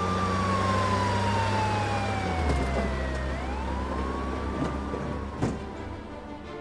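Police siren wailing in a slow rise and fall over a low, steady vehicle engine hum, with a short sharp click about five seconds in.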